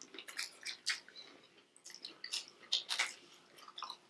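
People chewing food with the mouth close to the microphone: irregular wet clicks and smacks, a few short bites, no steady rhythm.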